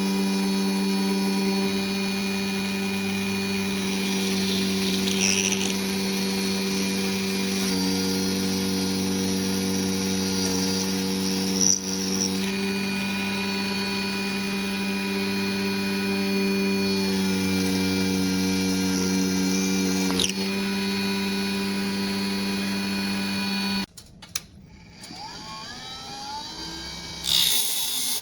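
Small electric motor of a dual-motor mini bench table saw running steadily with a constant hum, then switched off suddenly about 24 seconds in. A short scraping burst follows near the end.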